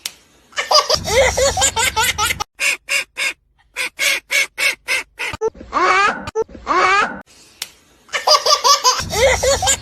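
A baby or small child laughing in strings of short, quick bursts, several a second, with pauses between the bouts.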